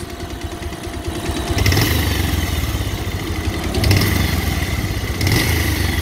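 Bajaj Pulsar 150's air-cooled single-cylinder engine idling with a rapid clattering tick ('kat kat kat') from the cylinder head. The engine note swells briefly about three times. The owner is sure the valves are at fault: a tappet problem or a stretched timing chain.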